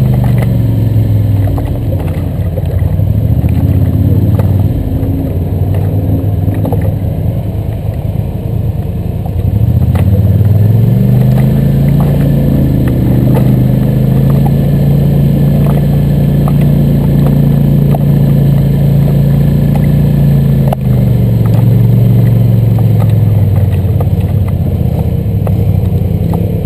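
ATV engine running under load on a rough dirt trail, its pitch climbing about ten seconds in, holding higher, then dropping back about twenty seconds in. Scattered knocks and rattles from the machine bouncing over the trail.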